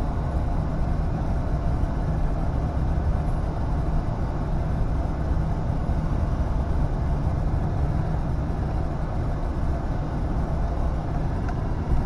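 Steady engine and tyre road noise inside the cab of a pickup truck driving along, a low, even rumble.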